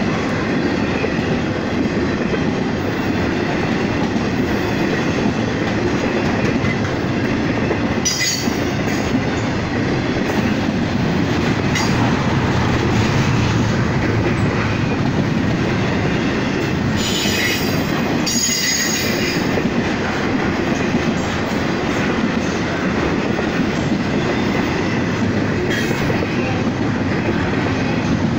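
CSX double-stack intermodal freight train rolling past at steady speed: continuous wheel-on-rail rolling noise, with brief high-pitched wheel squeals about eight seconds in and again around seventeen to nineteen seconds.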